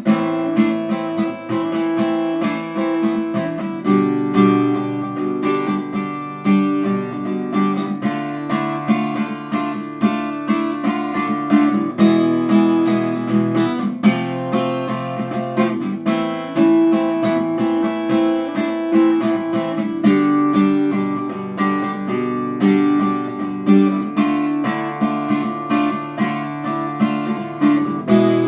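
Acoustic guitar strummed steadily, playing the song's chord progression with a chord change about every two seconds.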